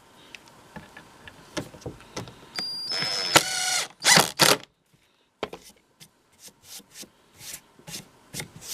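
A cordless drill-driver runs for about a second, its pitch falling as it spins down, driving a small screw into a plywood stop block, with two short bursts just after; clicks and knocks of wood and screws being handled follow.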